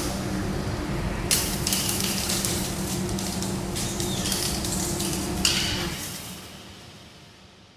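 An AI-generated sound effect playing back: a hissing, clattery noise with a few sharp clicks over a low steady hum. It fades away over the last two seconds.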